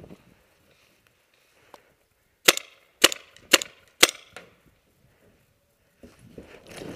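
Four sharp paintball marker shots in quick succession, about half a second apart, followed near the end by footsteps crunching through dry leaves.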